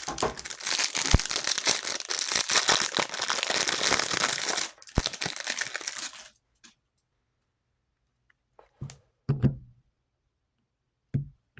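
Wrapper of a Topps baseball-card hanger pack being torn open and crinkled for about six seconds, followed by a few soft knocks as the cards are handled.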